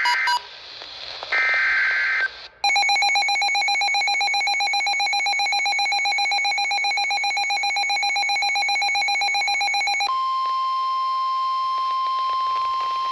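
NOAA Weather Radio severe thunderstorm warning alert. It opens with two short screeching SAME digital header bursts, followed by a rapidly pulsing electronic alarm for about seven seconds. About ten seconds in, this gives way to the steady, single-pitched 1050 Hz warning alarm tone.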